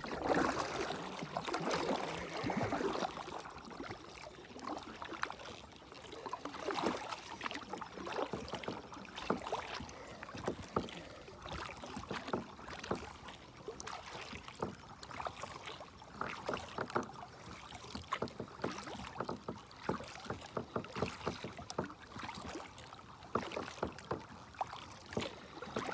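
A kayak being paddled: the paddle blades dip and splash in the water with drips and small knocks, in an uneven rhythm.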